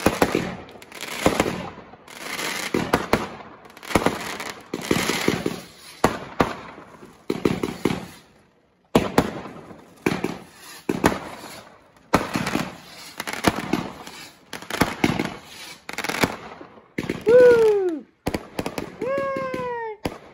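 Aerial fireworks bursting in quick succession, about one sharp bang a second, each followed by a spray of crackle. Near the end come three drawn-out wails that fall in pitch.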